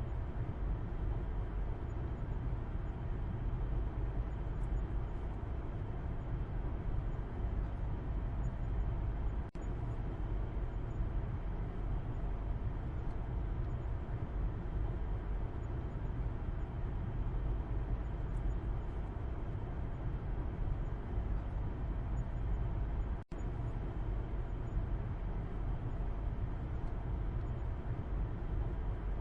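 Steady low road rumble inside a moving car's cabin, heard from the back seat: tyre and engine noise at an even cruising pace. The sound cuts out for an instant twice, about a third of the way through and again near the end.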